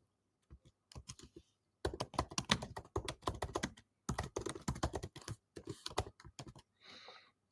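Typing on a computer keyboard: a few scattered keystrokes, then rapid runs of key clicks with brief pauses, stopping about a second before the end.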